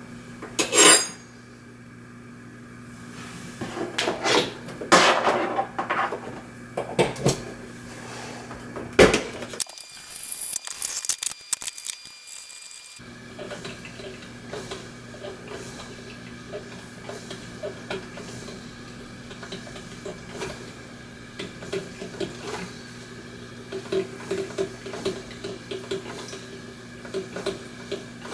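Kitchen handling noises: clinks and knocks of a coffee pot and dishes over a steady appliance hum, with a short hiss about ten seconds in. The hum carries on afterwards with a faint pulsing.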